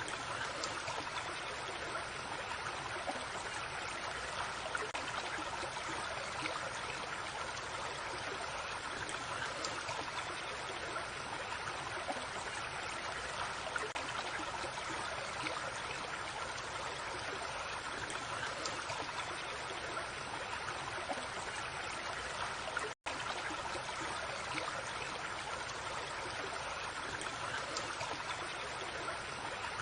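Creek water flowing and babbling over stones in a steady rush, cutting out for an instant about 23 seconds in before carrying on.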